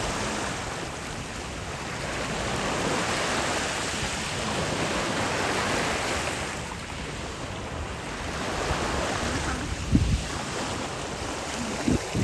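Sea waves washing onto the beach in slow surges, with wind buffeting the microphone in two short thumps near the end.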